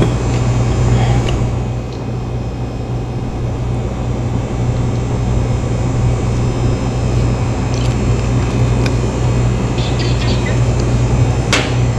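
Steady low mechanical hum of background machinery, with a short sharp click about a second before the end.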